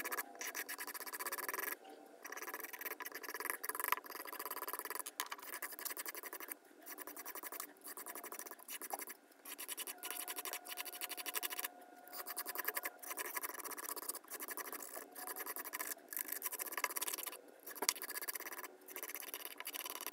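Razor blade scraping grease and grime off an old wooden hammer handle, in repeated short strokes with brief pauses between them.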